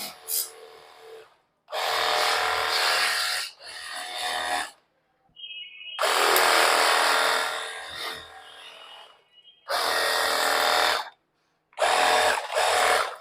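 A compact portable pressure washer's motor and water jet spraying a motorcycle in repeated bursts as the trigger is pulled and released: about six bursts of one to three seconds each, with short gaps between them.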